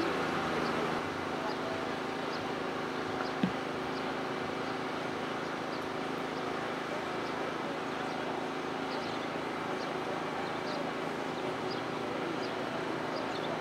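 Steady outdoor background noise with a faint hum, faint short high chirps every second or so, and a single short knock about three and a half seconds in.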